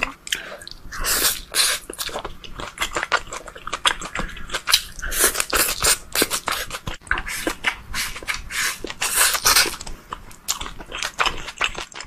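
A person chewing a mouthful of rice and tofu in sauce, with many quick, irregular mouth clicks and smacks in bursts.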